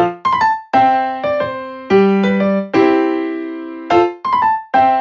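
Background music on a keyboard: single notes and chords struck every half second or so, each dying away before the next.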